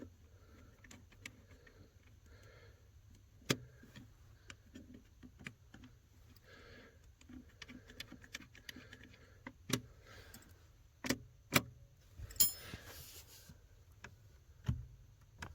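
Scattered clicks and small metallic taps from a wrench and fingers working the brake light switch and its lock nuts on the brake pedal bracket, with a few sharper knocks and a short scrape near the end. Heavy breathing comes in between.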